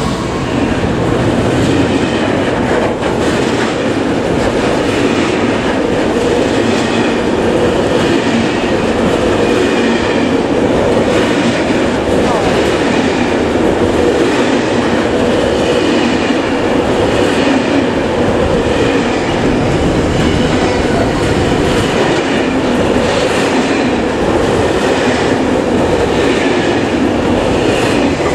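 Freight train wagons rolling past close by: a loud, steady rumble with the clickety-clack of wheels over the rail joints.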